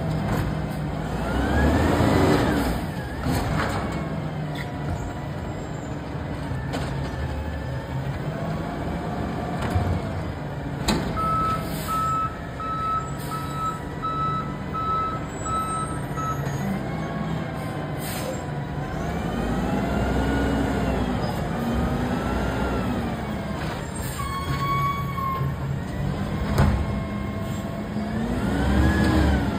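Natural-gas automated side-loader garbage truck running at the curb, its hydraulic arm whining up and down in rising and falling arcs as it lifts and dumps carts, with sharp knocks and air brake hisses. A reverse beeper beeps steadily for about five seconds in the middle.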